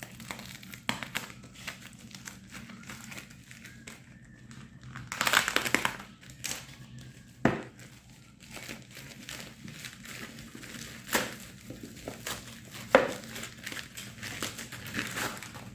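Packaging being handled during an unboxing: crinkling plastic and rustling with scattered sharp clicks and taps, the loudest stretch of rustling about five seconds in.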